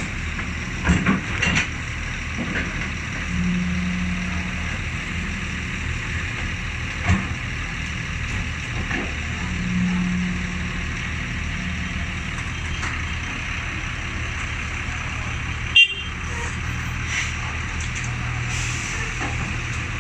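Excavator's diesel engine running steadily, with a few short knocks and one sharp click about sixteen seconds in.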